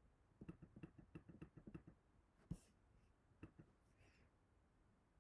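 Faint computer mouse clicks over near-silent room tone: a quick run of light clicks in the first two seconds as the bid selector is stepped along, then a sharper single click about two and a half seconds in and a softer one about a second later.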